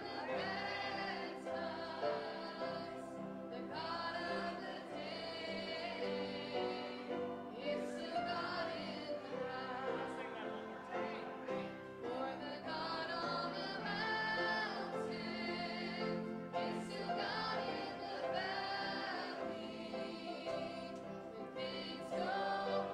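Church choir singing a gospel song in parts, with vibrato, over a sustained organ accompaniment.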